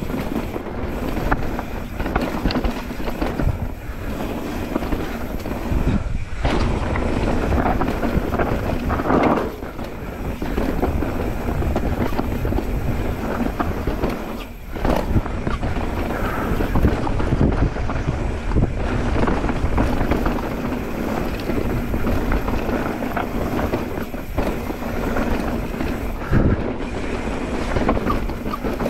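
Mountain bike descending a rough dirt trail at speed: tyres rolling over dirt and roots, with frequent knocks and rattles from the bike and wind buffeting the microphone.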